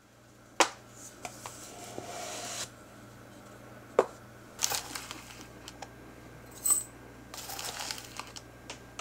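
Countertop handling of a cardboard tea canister and a glass teapot: sharp knocks about half a second in and again near the middle, with small clicks between. Plastic rustles, and near the end loose-leaf herbal tea is scooped from the canister's plastic liner with a wooden spoon.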